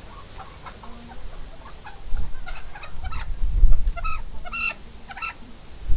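Red desi country chicken giving a run of short, sharp calls as it is grabbed and held by hand, with low rumbling bumps of handling underneath.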